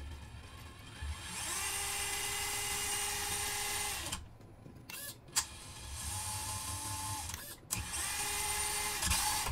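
A FMS FCX24 1/24-scale crawler's electric motor and gear drivetrain run with the wheels off the ground, giving a steady whine. The throttle is applied three times: for about three seconds, then briefly, then again near the end.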